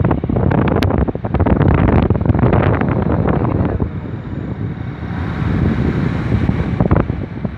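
Wind buffeting a phone's microphone, a rumbling, crackling noise that eases a little about four seconds in.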